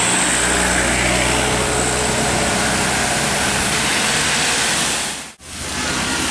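A bus engine running under a heavy hiss of rain and road spray, steady and loud, dropping away sharply for a moment about five seconds in.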